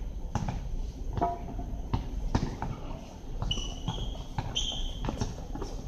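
Basketball bouncing on an outdoor hard court, irregular thuds of the ball during play, with a few brief high squeaks partway through.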